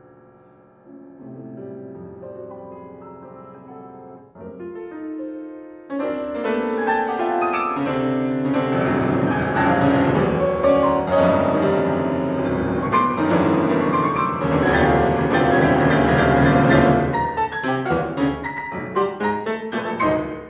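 Yamaha grand piano played four-hands. Sparse, quieter chords give way about six seconds in to a sudden loud, dense passage. It breaks into short, clipped chords near the end.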